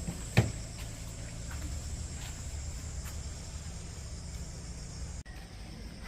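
Insects singing steadily outdoors over a low rumble, with one sharp thump about half a second in. The sound cuts out for an instant near the end.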